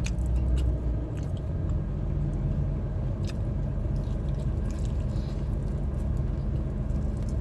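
Biting and chewing crispy fried chicken dipped in cheese sauce, with a few sharp crunches in the first half, over a steady low hum.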